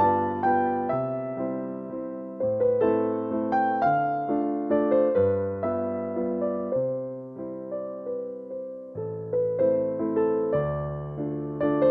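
Background music: a slow, gentle piano piece, single melody notes over changing bass notes, each note struck and dying away.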